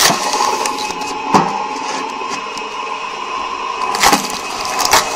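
Motor-driven cone (screw) log splitter running with a steady whine as a birch log is pressed onto the spinning threaded cone; the wood gives four sharp cracks as it splits apart.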